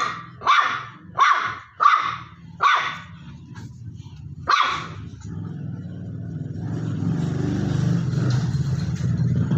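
Small dog barking sharply at another dog, about six barks over the first five seconds, then a low, steady growl.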